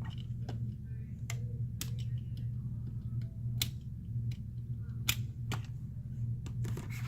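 Small sharp clicks and taps of hand tools handling adhesive strips on a phone's frame during a screen repair, about nine at irregular intervals, over a steady low hum.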